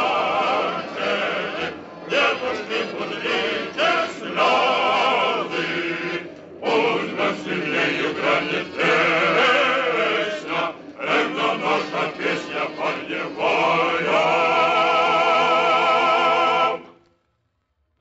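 A choir singing in a 1940s radio broadcast recording, in several phrases broken by short pauses, ending on a long held chord that stops abruptly about a second before the end.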